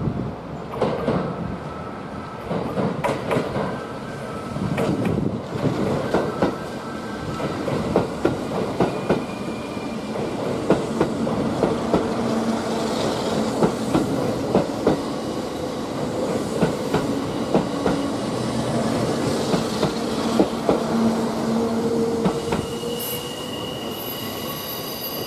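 Kintetsu limited express electric train passing through the station at low speed, its wheels clacking over the rail joints over a low steady hum. A high steady ringing tone comes in near the end.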